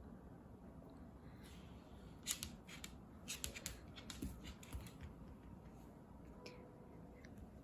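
Scissors snipping in a quick irregular run of crisp clicks, over faint room tone.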